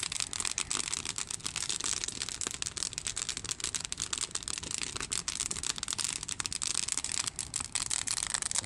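Wood campfire crackling and popping: a dense, irregular run of sharp snaps over a steady hiss.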